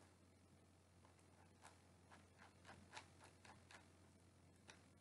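Near silence with about a dozen faint, irregular clicks from a computer's mouse and keys while a document is scrolled.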